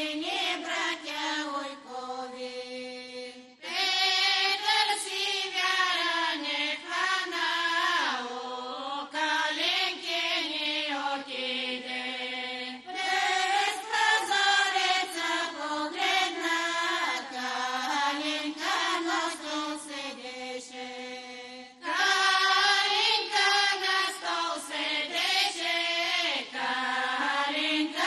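A group of women singing a Bulgarian folk song together, unaccompanied. The song goes in long phrases that start loud about every nine seconds and trail off into a held note.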